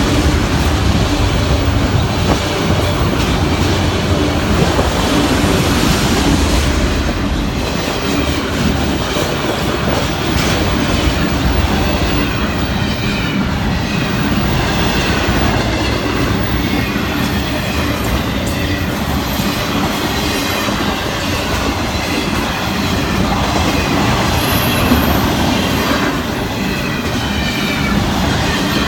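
Freight cars of a passing train, autoracks and then container well cars, rolling by loud and steady: wheels rumbling on the rail and clicking over the rail joints. A faint, wavering wheel squeal runs through the second half.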